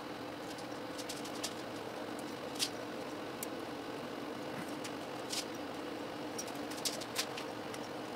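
Scattered light metal clicks and ticks as steel feeler gauge blades are worked into the gap between an FE Ford intake manifold and cylinder head, checking the gasket seal, over a steady low hum.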